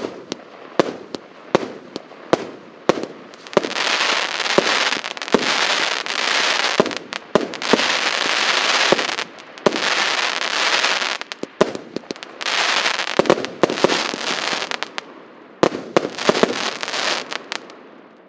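Russkaya Pirotekhnika PC7510 'Sto v odnom' 100-shot, 1-inch firework cake in its finale. It opens with separate sharp reports about twice a second, then after a few seconds turns into dense, continuous crackling from bursts of crackling stars, with shots going off through it. The crackle dies away near the end.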